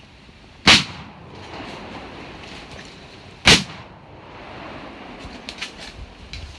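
Two loud gunshots about three seconds apart, each trailing off in a short echo, from hunters shooting at feral pigs. A few faint ticks follow near the end.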